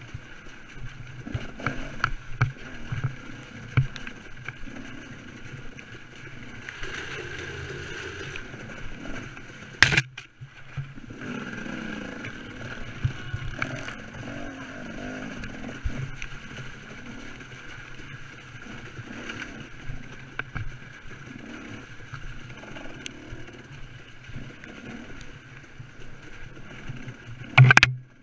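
KTM 300 two-stroke dirt bike engine running as the bike is ridden over a muddy, rocky trail, heard through a bike-mounted camera, with two sharp knocks, about ten seconds in and near the end.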